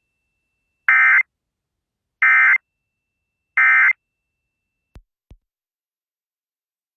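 Emergency Alert System end-of-message data tones: three short, identical buzzy bursts of digital data sent over AM radio about 1.3 seconds apart, marking the close of the alert. Two faint clicks follow.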